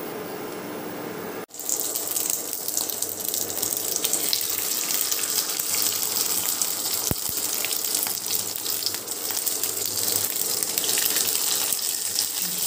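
Marinated fish and curry leaves shallow-frying in hot oil in a non-stick pan: a loud, steady sizzle with fine crackling, starting abruptly about a second and a half in.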